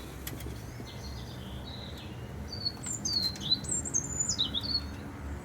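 A songbird singing a quick run of high, fast-changing chirps and whistles, strongest a few seconds in, over a steady low background rumble.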